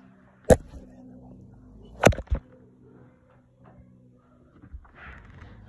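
Sharp knocks and bumps against the recording phone as it is handled with its lens covered: one about half a second in, two close together around two seconds in, over a faint steady hum, with a soft rustle near the end.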